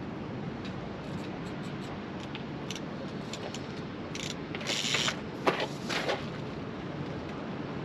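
Fishing rod and reel being handled at a tripod rod rest: a scatter of small mechanical clicks, then a few short rasping bursts about four to six seconds in. Steady wind and sea noise lies underneath.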